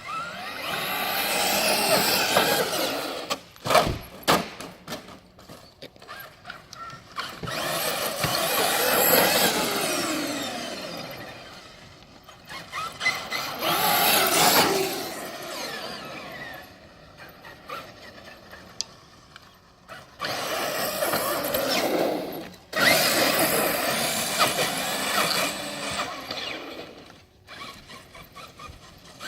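Traxxas X-Maxx electric RC truck's motor and drivetrain whining as it revs up and down in four long runs, with sharp clicks and knocks between them. The owner puts the ticking down to a broken part that lets an axle rub on the top of the truck.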